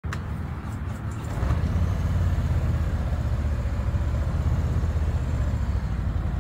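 Motorcycle engine running, getting louder about a second and a half in.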